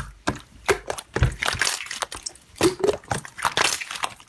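Clear slime being stretched and pressed by hand, giving irregular sticky crackles and pops.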